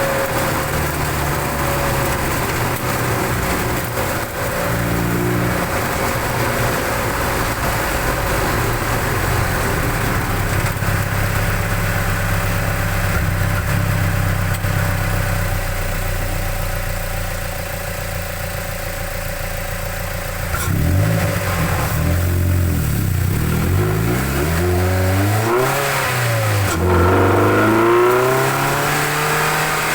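Mazda MX-5 NC1's 2.0-litre MZR four-cylinder, fitted with aftermarket cams and a cold air intake, idling steadily with loud intake noise. About two-thirds of the way through it is revved up and down several times in quick succession.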